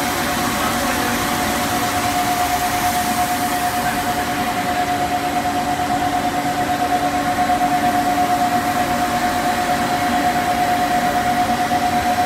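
CPVC pipe extrusion line with a 65/132 twin-screw extruder running: a steady machine hum with one high constant whine over a lower tone, with a slight regular pulse.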